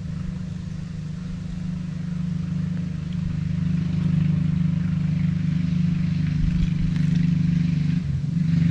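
A motor running with a steady low hum that grows gradually louder.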